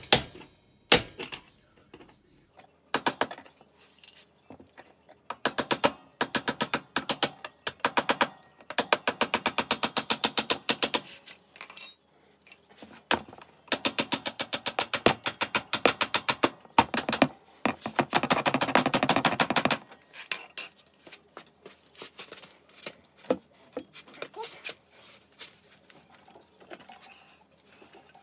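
Ratchet wrench clicking in quick, even runs while working the ATV's swingarm pivot bolt, with a few separate metal taps near the start.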